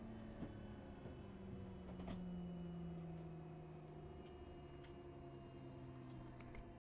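Cessna 208 Caravan's PT6A turboprop engine winding down after shutdown: a faint whine made of several tones slowly falling in pitch, with a few light ticks. The sound cuts off suddenly near the end.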